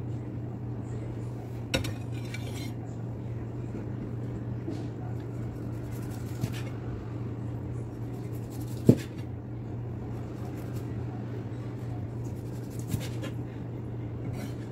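Knife knocking and scraping on a plastic cutting board while cooked pork is trimmed and cut, a few sharp knocks scattered through, the loudest about nine seconds in. A steady low hum runs underneath.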